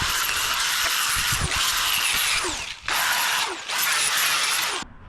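Handheld power tool with an abrasive or wire wheel scouring rusty steel, running in loud spells with short breaks near the middle and cutting off just before the end.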